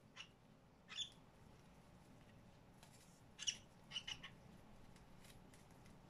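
Cockatiel giving short, sharp chirps: one at the start, one about a second in, then a quick run of three around three and a half to four seconds.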